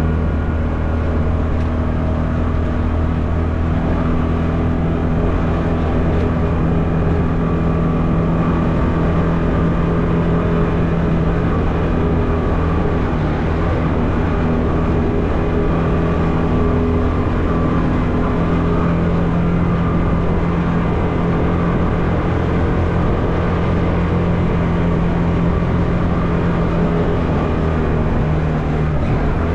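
Can-Am Maverick Trail 1000 side-by-side's V-twin engine running steadily while driving along a trail, a continuous even drone with little change in pitch.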